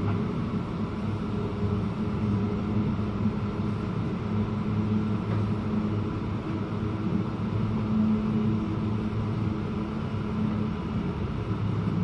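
Steady low hum and rumble heard inside a Queensland Rail SMU electric train as it runs slowly alongside a station platform on arrival.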